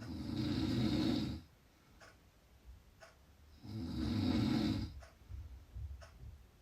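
A person snoring loudly: two long snores, each just over a second, about three and a half seconds apart, with quieter breathing between them.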